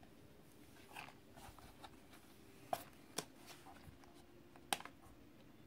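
Faint handling of a plastic Syma X8C quadcopter as it is being switched on: soft rustling and a few sharp plastic clicks, the loudest about three quarters of the way through.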